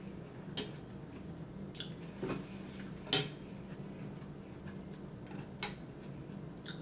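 Metal spoon and chopsticks clicking against a ceramic noodle bowl every second or so, the loudest click about three seconds in, over a low steady hum.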